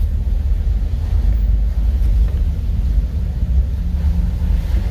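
Steady low rumble of a car driving slowly, heard from inside the cabin.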